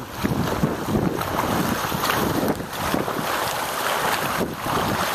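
Wind rushing over the microphone in a steady roar, mixed with water sloshing as bicycles ride through knee-deep floodwater.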